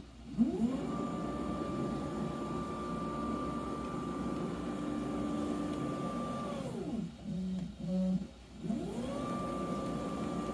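Stepper motors of a V1 Engineering DIY CNC driving the gantry on a fast traverse. A whine rises as it speeds up, holds steady with a clear tone near 1 kHz, and falls away as the machine stops about six and a half seconds in. Two short low hums follow as the Z axis dips the V-bit to pop a small hole and lifts again, then a second fast traverse whines up near the end.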